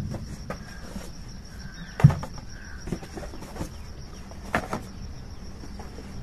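Cardboard boxes being handled: a few knocks and taps as small boxed bottles are lifted out of a cardboard carton and set down on a table, the loudest about two seconds in. A faint steady high-pitched tone runs underneath.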